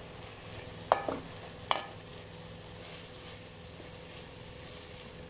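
Chicken and vegetables sizzling softly in a frying pan as they are stirred, with the stirring spoon knocking sharply against the pan twice, about a second in and again near two seconds.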